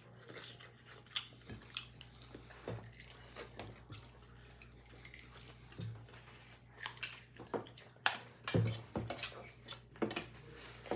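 Close-up eating sounds: chewing and crunching, with scattered sharp clicks and taps of fingers and a spoon against plates and bowls, louder and busier in the last few seconds.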